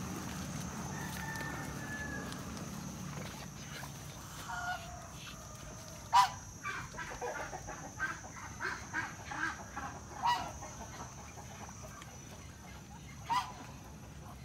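Domestic fowl calling: scattered short calls, with a run of quick calls in the middle and three louder single calls, each with a quick falling sweep, about six, ten and thirteen seconds in. A faint steady high-pitched whine sits in the background.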